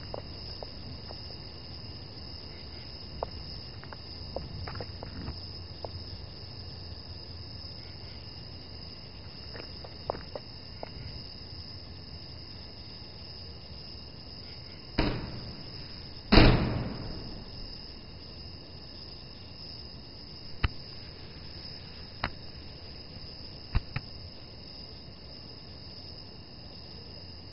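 Steady high-pitched chirring ambience under the scene, broken about halfway through by two heavy bangs a second and a half apart, the second louder and echoing away. A few sharp clicks follow later.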